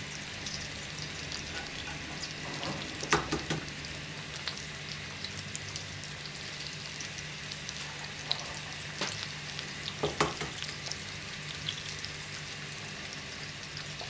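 Beef sucuk slices and eggs sizzling in butter in a frying pan, a steady hiss. A few sharp cracks stand out, about three seconds in and again near nine and ten seconds, as eggs are broken on the pan and dropped in.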